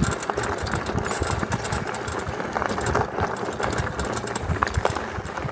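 Steady crunching and crackling of dry brush, leaves and twigs on an overgrown trail as they are pushed through, with many small snaps. A faint high whine sounds for about a second, starting about a second and a half in.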